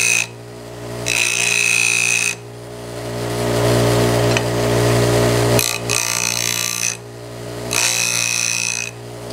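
Bench grinder running steadily with a low motor hum, while a steel jack plane iron is pressed to the wheel in three short passes of about a second each, each one a high grinding hiss. Between passes only the motor hum remains. The passes are grinding a cambered bevel on the blade.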